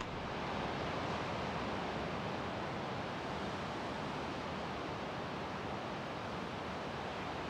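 Steady wash of Pacific Ocean surf breaking on the beach below, an even rushing noise with no footsteps.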